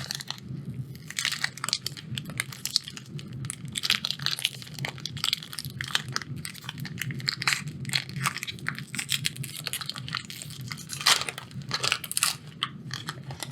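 Foil wrapper of a Magic: The Gathering draft booster pack being torn open and crinkled by hand: a dense, irregular run of crackles and crinkles, loudest about eleven seconds in.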